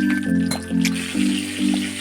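Background music: an even run of low, sustained chord notes changing about twice a second, with a few faint clicks over it.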